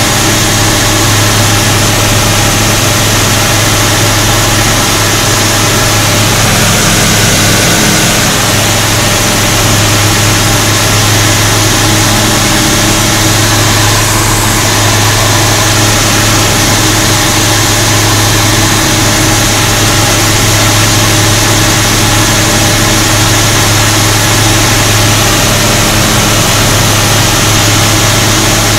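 Light aircraft's engine and propeller running steadily, heard loud inside the cockpit: a constant low drone under a strong rushing hiss.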